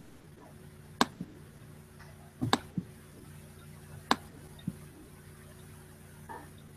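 Several sharp, irregularly spaced clicks, a couple of them in quick pairs, over a faint steady hum.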